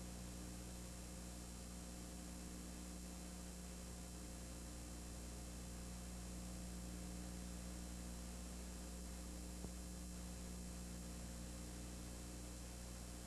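Steady electrical hum with even hiss and no game sound. There is one faint tick about two-thirds of the way through.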